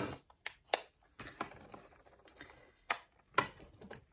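Clear plastic discbound planner discs clicking as they are pressed onto the punched edge of a planner cover and pages: a handful of separate light clicks and taps.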